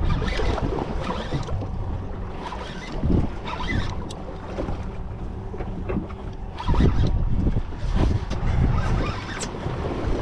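Wind buffeting the microphone, with water slapping and washing against a small boat's hull, in uneven gusts and a few short sharp splashes.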